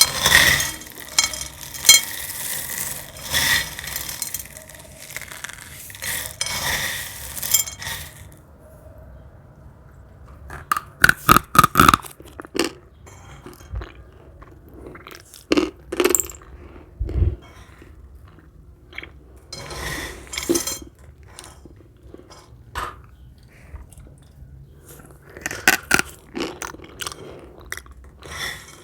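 Crispy dried cornstarch film crunching and crackling as it is crushed and handled. A dense stretch of crackling runs for about the first eight seconds, then gives way to scattered sharp snaps and crunches, with a quick burst of several snaps about eleven seconds in.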